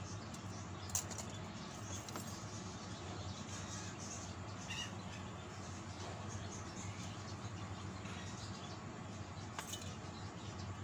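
Faint clicks and scratches of aluminium wire being wrapped and twisted by hand around a split fig-tree root base, with a sharper click about a second in and another near the end, over a steady low hum.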